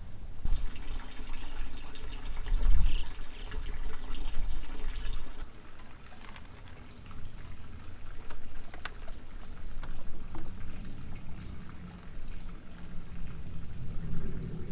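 Water pouring for about five seconds, then scattered drips and small clicks.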